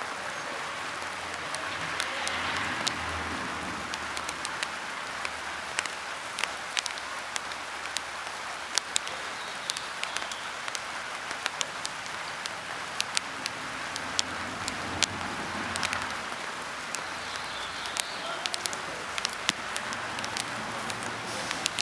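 Rain falling on a surface: a steady hiss with many scattered sharp drop clicks.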